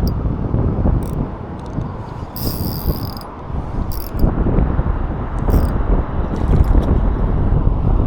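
Spinning reel being cranked while fighting a hooked fish, its gears ticking and whirring, with several short hissy bursts.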